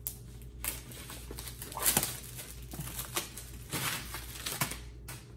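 Plastic packaging crinkling and rustling in irregular bursts as a product box is opened and the wrapping inside is pulled out.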